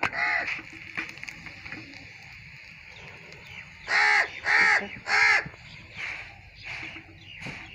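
A crow cawing: one caw at the start, then three loud caws in quick succession about four seconds in, followed by a couple of fainter calls.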